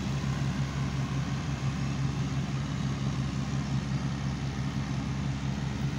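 Massey Ferguson MF 186 combine harvester running steadily while threshing wheat: an even engine and machinery drone with a constant low hum.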